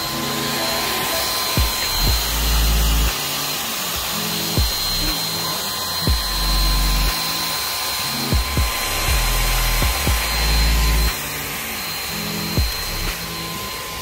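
Handheld hair dryer running steadily, a continuous rushing hiss with a thin high whine, as it blows on a frozen car door handle. Background music with a heavy repeating bass beat plays over it.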